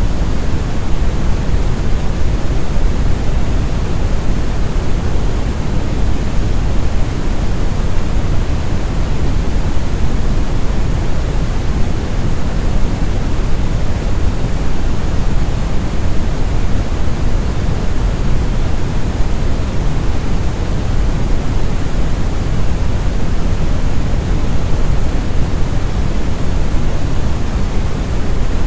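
Synthetic brown (red) noise: a smooth, steady, deep rumbling hiss with most of its energy in the low bass, tapering off toward the treble, without any change or event.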